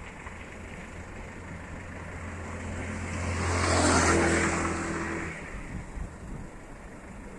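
A motor vehicle driving past: its engine hum and rushing noise build up, are loudest about four seconds in, and fade away about a second later.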